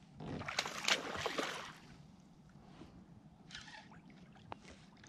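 A hooked largemouth bass splashing and thrashing at the water's surface during the first second and a half, then quieter water with a short splash about three and a half seconds in.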